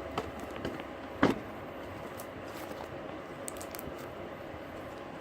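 Slime with lotion worked into it being mixed by hand: scattered faint sticky clicks and squelches, with one sharper click about a second in.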